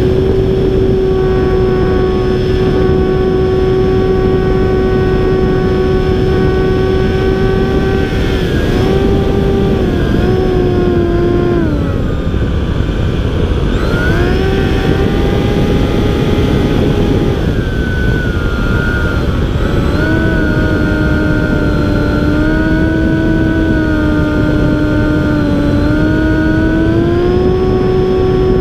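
Electric motor and propeller of a battery-powered RC airplane running in flight, a steady whine over heavy wind rumble, heard from a camera mounted on the plane. The pitch drops as the throttle comes back about twelve seconds in, picks up again, sags lower for a stretch later on, and climbs back near the end.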